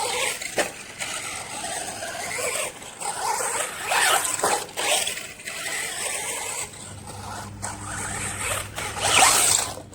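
Electric RC monster truck running on a 3S battery, its motor whining up and down in several throttle bursts as it takes another run at the ramp. There is a sharp knock about half a second in, and the longest, loudest burst comes near the end.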